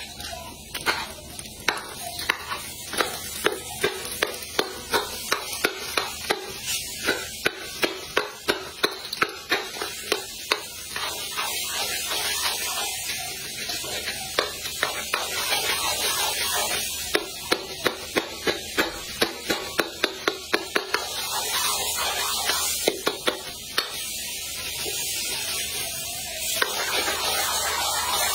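Butter, popcorn kernels and dragon fruit sizzling in a hot steel wok. A metal spoon stirs them, scraping and clicking against the pan about twice a second.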